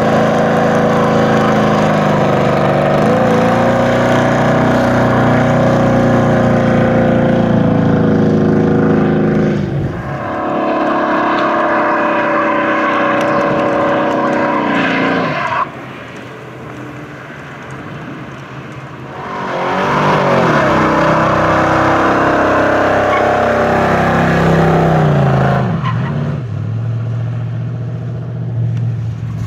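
Station wagon's engine revving hard through a burnout, its rear tyres spinning and squealing in the smoke. The engine drops back sharply about halfway through and comes up on the revs again a few seconds later.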